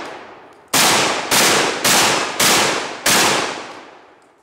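12-gauge shotgun firing slugs in quick succession: five loud shots about half a second apart, each with a long fading tail, the last one dying away near the end. The tail of an earlier shot is still fading as it begins.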